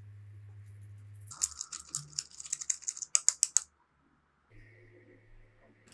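Seasoning powder being sifted from a mesh strainer onto fried spiral potatoes: a quick run of light, irregular taps and rustles lasting about two seconds, starting about a second and a half in, after a low steady hum.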